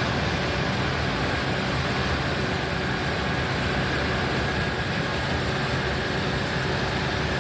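Combine harvester running steadily in the field, a low engine hum under a broad even whir with a faint high whine.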